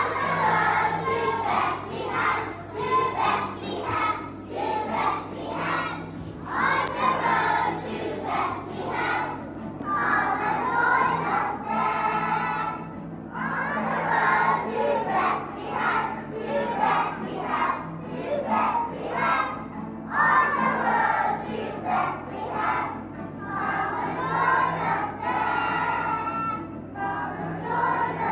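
A large group of young children singing a song together, in phrases with short breaks between them.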